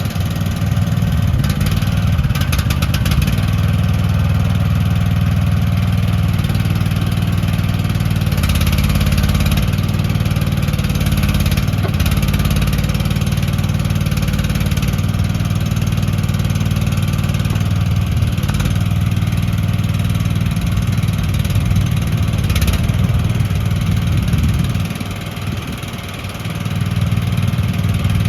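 AGT QK18RKS-C mini excavator engine running steadily, freshly started. Its level drops for a couple of seconds about 25 seconds in, then picks back up near the end.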